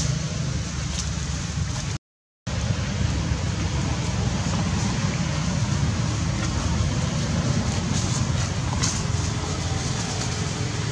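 Steady outdoor background noise: a low rumble with an even hiss above it, broken by a brief cut to silence about two seconds in.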